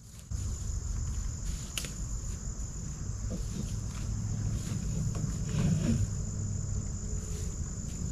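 A steady high-pitched chorus of crickets and other insects, with a low, uneven rumble coming in just after the start.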